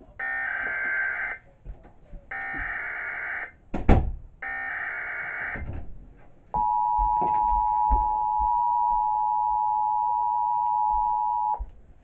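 TFT EAS 911 encoder/decoder relaying a severe thunderstorm warning: three short bursts of SAME header data tones, then the steady two-tone EAS attention signal for about five seconds. A single sharp thump falls between the second and third bursts.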